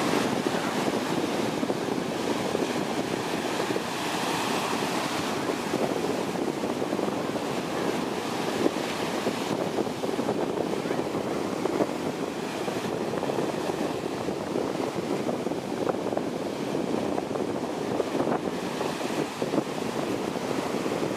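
Sea surf breaking and washing up onto a sandy beach: a steady rush of foaming water that swells a little as each wave comes in.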